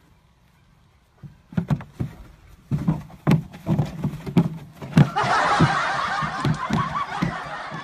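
Irregular low thuds and knocks as a horse bashes a blue plastic barrel about and bucks with its head stuck in it. Laughter joins about five seconds in.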